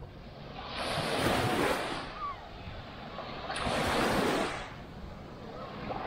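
Small waves breaking on a sandy beach, washing in twice, each wash swelling up and fading away over a second or two.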